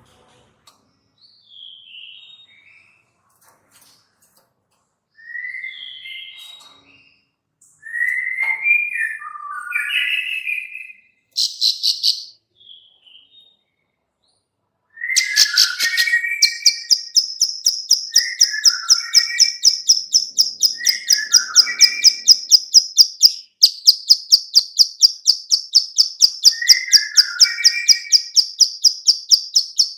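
Plain prinia (ciblek sawah) calling: first scattered short chirps, then from about halfway a fast, steady run of high clicks, the female's 'klik-klik' call. A short chirping phrase comes back every couple of seconds over the clicks, and the clicking breaks off for a moment about three-quarters of the way through.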